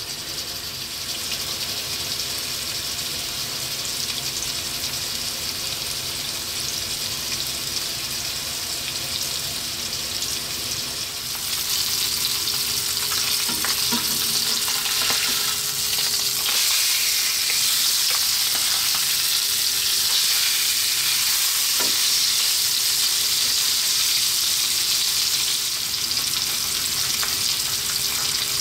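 Salmon steaks sizzling steadily in olive oil and spices in a frying pan over heat just below medium. About twelve seconds in, the steaks are turned over with a spatula: the sizzle gets louder and there are a few light knocks of the spatula in the pan.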